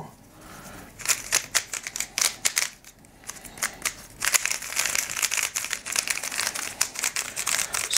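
Moyu YS3 M 3x3 speed cube being turned rapidly by hand: a fast, uneven run of plastic clicks and clacks as the layers turn, thickening about a second in. The cube is freshly lubricated and being worked in.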